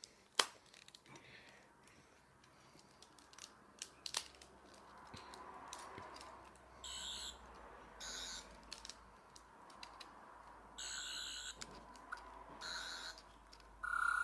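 Toy 12th Doctor sonic screwdriver by Character Options playing its electronic sound effect in several short, high-pitched bursts during the second half, after a few handling clicks.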